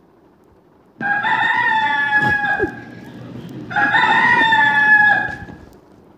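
Recorded rooster crowing twice, each crow a long call of about two seconds, played through a small portable speaker.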